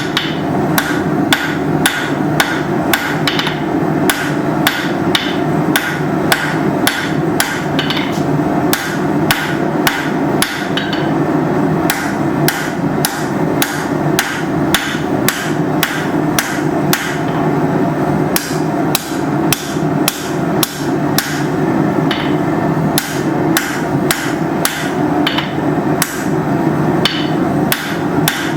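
Hammer blows on hot steel at the anvil, about two to three a second without a break, drawing out a taper on square bar stock. A steady low roar runs underneath.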